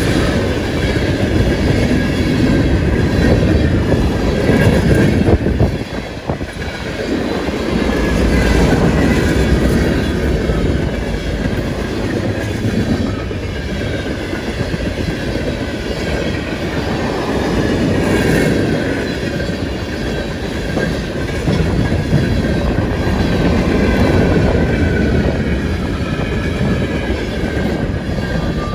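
CSX freight train rolling past at about 45 mph: a continuous loud rumble and clatter of steel wheels on the rails, swelling and easing as the cars go by, with faint high ringing from the wheels.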